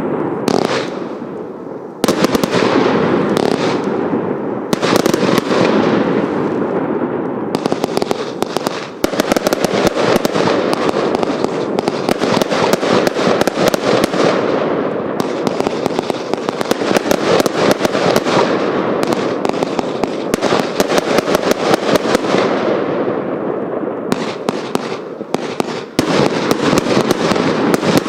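Hallmark Vanquish 320-shot compound firework cake firing a dense, near-continuous barrage of rapid cracks and crackle. The barrage thins out and fades briefly about 2 s in and again near the end, then starts up again hard.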